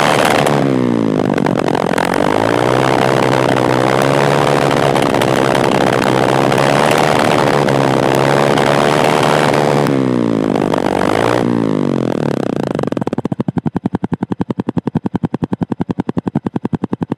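Exhaust of a Bajaj CT 125X's 125 cc single-cylinder engine, heard close at the silencer. It is blipped up and down, held at a steady raised speed for several seconds, revved again, then settles to idle near the end with an even 'dhak dhak' beat of separate exhaust pulses. It is a normal, unremarkable sound for a 125 cc engine.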